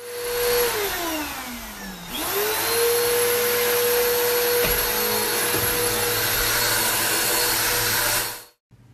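Vacuum cleaner running with a steady whine. About a second in, its pitch and level slide down, then about two seconds in it climbs quickly back to full speed. The sound cuts off suddenly near the end.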